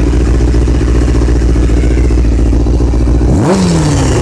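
2000 Honda CBR600's inline-four engine idling low, around 1,000 rpm, with its carburettor vacuum leak fixed. About three and a half seconds in, a quick throttle blip sends the revs up sharply before they fall back toward idle.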